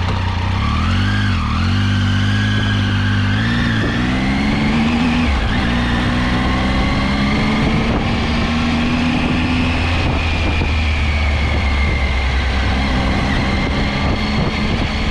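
Motorcycle engine running on the move. Its pitch rises and falls with the throttle over the first few seconds, drops about five seconds in, then holds steady, over a constant rush of noise.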